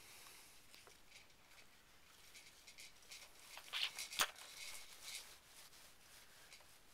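Faint clicks and rattles of the plastic toys on a Fisher-Price Jumperoo tray as a baby handles and mouths them, with a quick cluster of sharper clicks about four seconds in, one of them the loudest.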